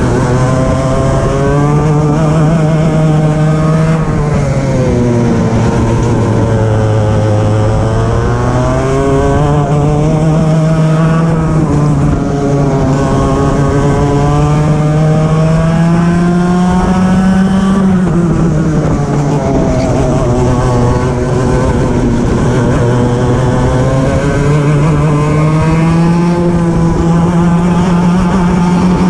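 Racing kart engine heard onboard at full throttle, its pitch climbing steadily on the straights and dropping as the kart slows into the corners, several times over.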